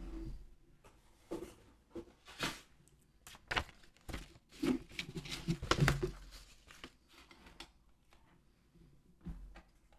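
A crinkly packet being handled and torn open: an irregular run of crackles and rustles, loudest a little past the middle, thinning out near the end.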